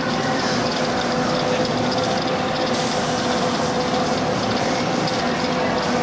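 Steady mechanical hum with a constant hiss, unchanging in level and pitch.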